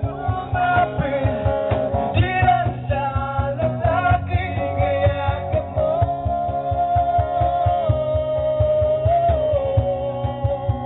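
Live acoustic band playing: strummed guitar over an even beat, with men singing. One voice holds a long note in the second half.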